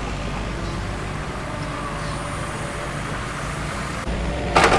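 Yanmar mini excavator's diesel engine running steadily, louder about four seconds in, with one brief sharp sound soon after.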